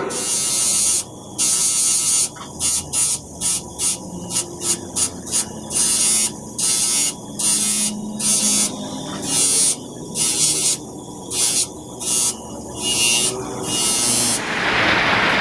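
Steel being worked with an abrasive in short repeated passes: about twenty bursts of hissing, grinding noise with brief gaps between them, over a faint steady hum. Near the end a continuous hiss takes over.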